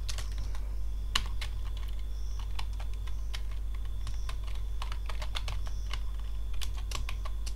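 Typing on a computer keyboard: irregular keystroke clicks over a steady low hum.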